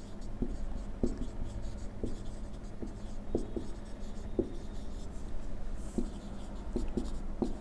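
Whiteboard marker writing on a whiteboard: faint scratching strokes with irregular short taps as figures and letters are written.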